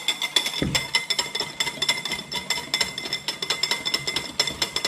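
A metal utensil whisking instant coffee and hot water by hand into dalgona foam, clinking rapidly and continuously against the sides of a glass container, with a dull knock about half a second in.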